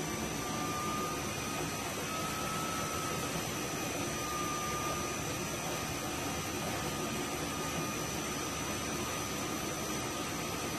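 Electric irrigation pump and its variable speed drive running: a steady machinery hiss with a thin, constant high whine and a fainter tone that wavers slightly.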